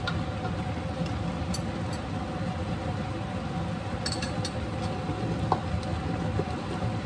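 Steady low kitchen hum with a constant tone from a running appliance, and a few light metal clinks, a serving spoon touching the pan, about four seconds in.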